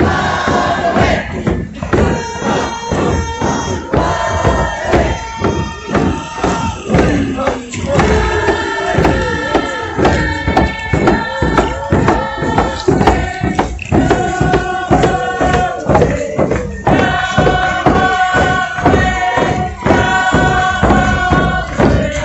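Group of voices chanting on held notes over a steady drum beat.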